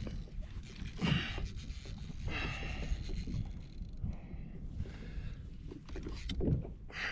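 Steady wind rumble on the microphone, broken every second or so by short hissing exhales from an angler straining as he cranks in a hooked fish on a jigging reel.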